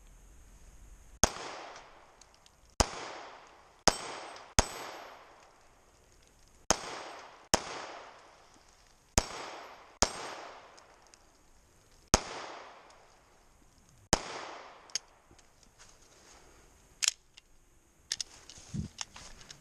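A Smith & Wesson M&P Shield 2.0 9mm pistol fires about a dozen shots at an irregular pace, one every one to two seconds, each sharp crack followed by a short echo. The steel paddles of a pistol dueling tree ring faintly after some hits. Lighter metallic handling clicks come near the end.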